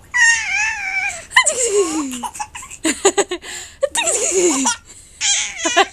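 Playful laughter and high-pitched squeals in several bursts, some sliding down in pitch, with a run of quick giggles near the end.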